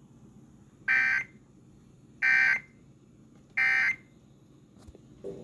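Emergency Alert System end-of-message signal: three short, identical bursts of buzzy high-pitched SAME digital data tones, a little over a second apart, marking the end of the alert.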